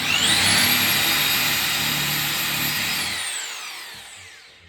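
Electric drill running: its motor whine rises to full speed, holds steady for about three seconds, then falls in pitch and fades as the motor winds down.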